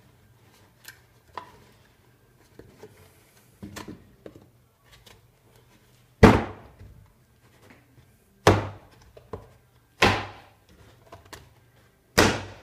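Wooden drawer parts being knocked into place: four loud, sharp wooden knocks spaced a couple of seconds apart, with a few lighter taps before them and a faint low hum underneath.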